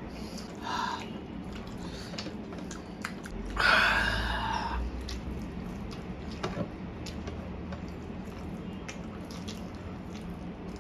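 Wet eating sounds from mouthfuls of saucy spicy Korean fire noodles eaten by hand: chewing, lip smacks and sticky squishes with many small scattered clicks. A short louder mouth noise comes just under a second in, and a louder, longer one about three and a half seconds in.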